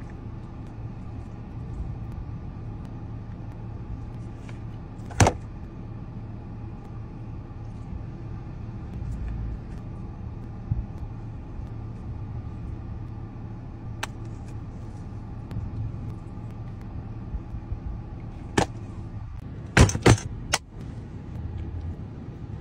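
Steady low hum of a car cabin with the engine idling, broken by a few sharp clicks or knocks: a loud one about five seconds in and a quick cluster of three near the end.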